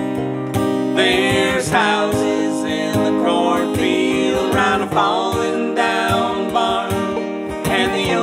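Live acoustic duo music: an acoustic guitar and a banjo playing together, with a man and a woman singing.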